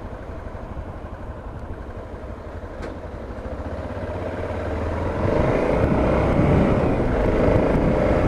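Motorcycle engine running at low speed in traffic, then growing louder from about five seconds in as the bike speeds up.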